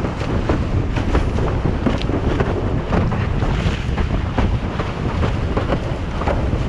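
Windsurf board planing fast over chop: rushing water and spray with irregular slaps of the board on the waves, under heavy wind buffeting on the microphone.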